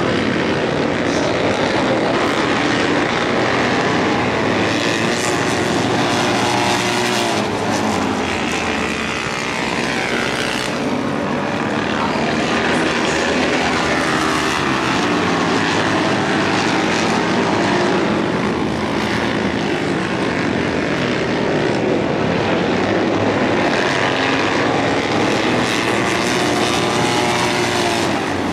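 Vintage flat-track racing motorcycle engines running hard and steadily loud, their pitch repeatedly rising and falling as the bikes accelerate and back off around the dirt oval.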